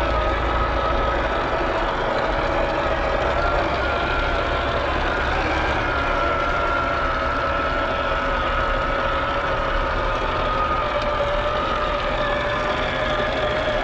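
Electric motor and gearbox of a 1/10-scale RC crawler whining steadily as it crawls through muddy water, the pitch drifting slightly with throttle, over the wash of water around the tyres.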